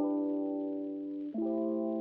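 Background music: soft sustained chords, changing to a new chord about a second and a half in.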